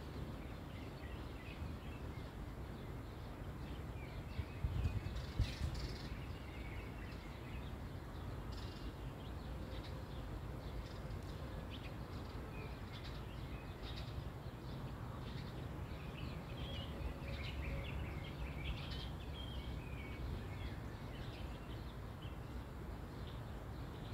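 Small birds chirping here and there over a steady low rumble of wind on the microphone, which gusts louder about five seconds in.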